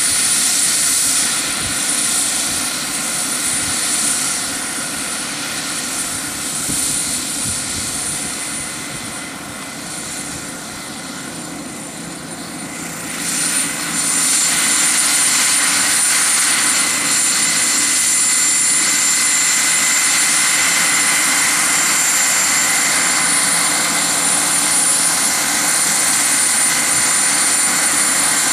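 Radio-controlled scale model Mil Mi-24D Hind helicopter with a Pahl GPH-70 model gas turbine in flight: a steady high turbine whine over the rotor noise. It grows quieter for a few seconds, then jumps back louder about halfway through and holds steady.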